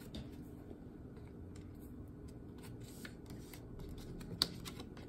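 Tarot cards being handled and laid down on a table: faint scattered light ticks and rubs of card stock, with one sharper snap about four and a half seconds in.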